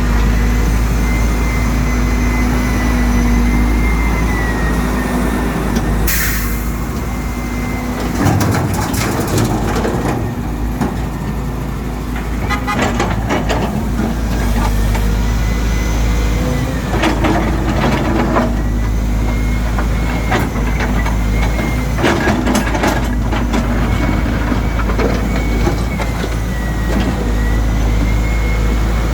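Volvo EC210 excavator's diesel engine running steadily under load, with a high hydraulic whine that dips and rises as the arm works. Bursts of scraping and knocking come about five times, each a second or two long: the bucket breaking up and dragging asphalt.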